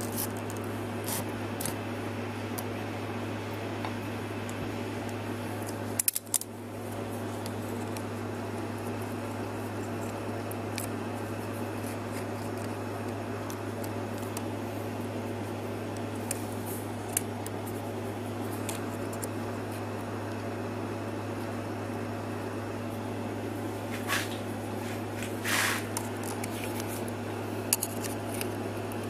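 Small metallic clicks and scrapes of an external snap ring being handled and fitted into its groove on a steel shaft, over a steady low hum.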